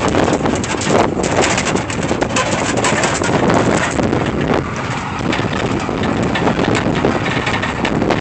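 Open-air trolley driving along, its engine and road noise heard under wind buffeting the phone's microphone, with scattered knocks and rattles.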